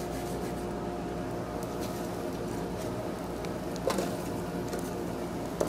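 Electric blower of a coal forge running with a steady hum as it pushes air through the fire, with a couple of light metal clinks near the end.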